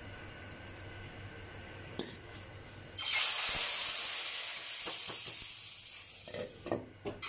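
A tadka of hot oil with fried garlic, green chillies and curry leaves poured into a pot of cooked chana dal: faint frying at first, then a sudden loud sizzling hiss about three seconds in that slowly dies away.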